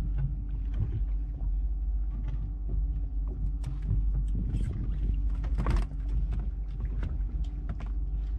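Small fishing boat's engine idling with a steady low rumble, with scattered knocks and clicks on board, the loudest about six seconds in.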